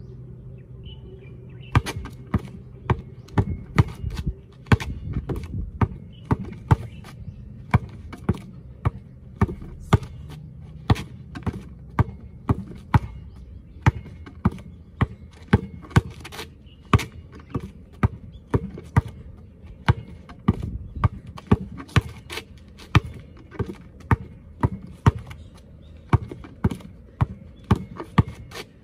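Basketball dribbled hard and low on asphalt in an under-drag drill. The sharp bounces come in a steady rhythm of about two a second, starting about two seconds in.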